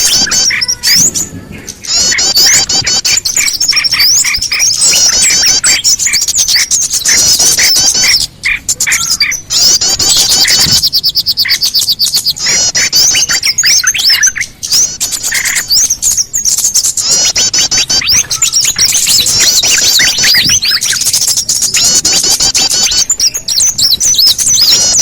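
Bird-lure recording of many small songbirds chirping at once: a dense, continuous mix of rapid high chirps and twitters, with lower repeated notes running under them and a few brief gaps.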